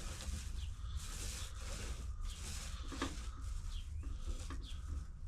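Foam roller spreading finishing epoxy over a model boat hull: a run of soft, sticky swishes in back-and-forth strokes, over a steady low rumble, with a few short high chirps.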